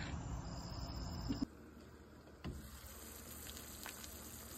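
Diced potatoes simmering in a pan on a stovetop: a quiet, steady bubbling hiss with a few soft pops. Before that, about the first second and a half, night outdoor ambience with a thin, high insect tone.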